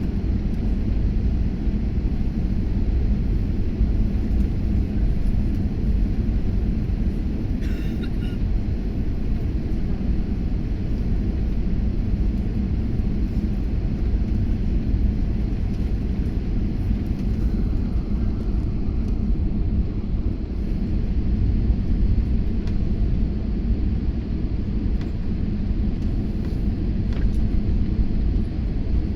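Steady low rumble of a jet airliner's engines and airflow heard inside the passenger cabin during the descent before landing. A brief faint tone sounds about eight seconds in.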